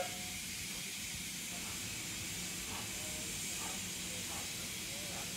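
Steady hiss from a distant steam locomotive approaching with its train, with no distinct exhaust beats.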